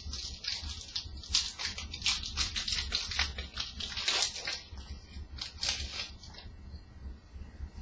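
Crinkling of a hockey-card pack's wrapper and rustling of cards being handled, in quick irregular crackles that thin out about six and a half seconds in.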